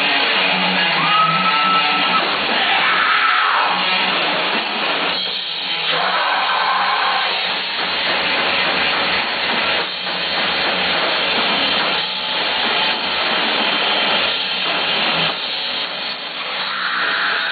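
Live rock band playing loudly: electric guitars and drums.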